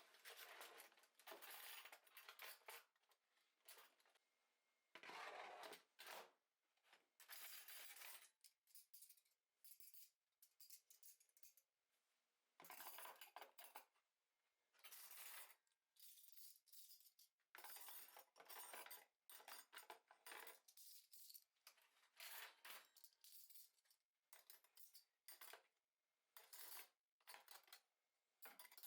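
Dishes and utensils being handled: a run of short clinks, scrapes and rustles, each lasting up to a second or so, with brief pauses between them.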